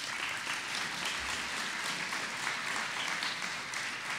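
Audience applauding: many hands clapping in a dense, steady patter that eases off near the end.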